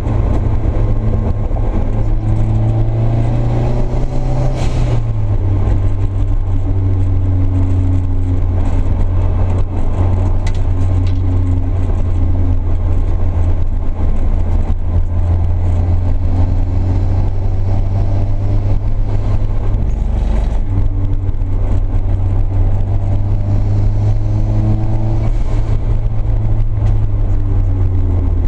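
Nissan 240SX S13's SR20DET turbo four-cylinder engine pulling hard through a track lap, heard from inside the cabin. Its note rises and falls with the throttle, with a drop in pitch about five seconds in and a brief dip near twenty seconds.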